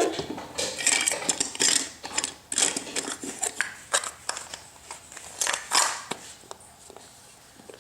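Small hard plastic objects clattering and knocking irregularly as they are handled and rummaged, dying away about six seconds in.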